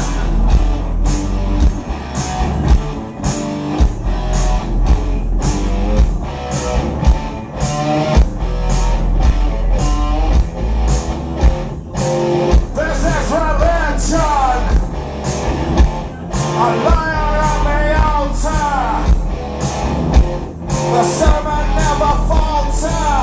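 Live rock band playing: bass and electric guitar over a steady beat, with a man's lead vocal coming in about halfway through.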